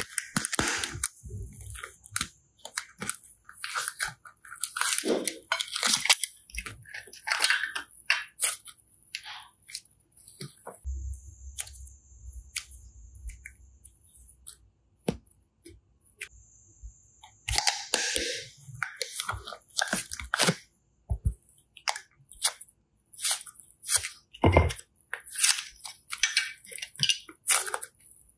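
Hands working slime: irregular wet crackling, popping and squishing at close range, with a low rumble of handling for a few seconds in the middle.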